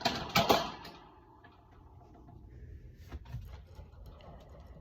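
A few sharp clattering knocks close to the microphone at the start, then faint scattered taps and scratches, from the pet birds moving about a phone set inside their cage.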